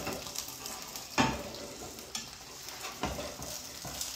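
An egg frying in a pan, a steady sizzle, with a spatula knocking and scraping against the pan a few times, the sharpest knock about a second in.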